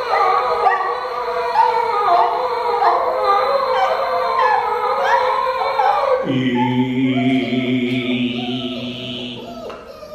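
Two men improvising wordless vocal sound poetry, their voices overlapping in high, sliding, wavering wails. About six seconds in the sound changes to a low, steady held tone with a thin high tone above it, which fades near the end.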